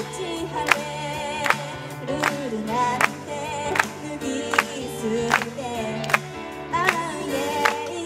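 Live pop song: a woman singing with vibrato to her own Yamaha electronic keyboard, over a sharp, even beat about every three-quarters of a second.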